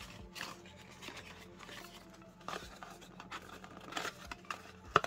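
Thin cardboard deck box being folded and assembled by hand: soft scraping and rustling of card stock with scattered light taps, and a sharp click near the end.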